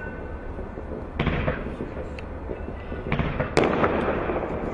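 Kimbolton Shogun firework cake firing: a steady crackle of mine shots, surging with louder volleys about a second in and again around three seconds in. Sharp cracks of bursting stars come near the end.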